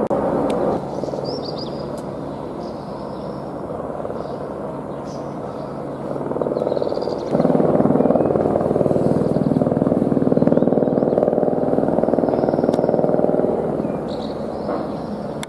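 Helicopter rotor chopping in a steady fast beat with its turbine, growing louder about seven seconds in and easing off near the end. A few faint high chirps sound above it.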